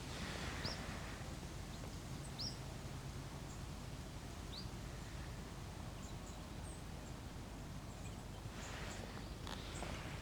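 Outdoor riverside ambience: a steady low background rumble with three short, high, rising bird chirps in the first five seconds.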